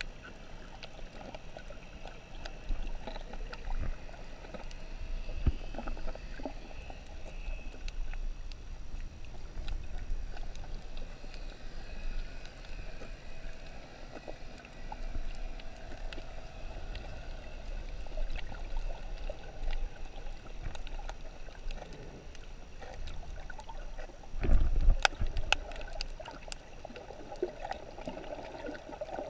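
Underwater sound through a GoPro's waterproof housing on a coral reef: a muffled, steady rush of water with scattered sharp clicks, and a louder low surge near the end.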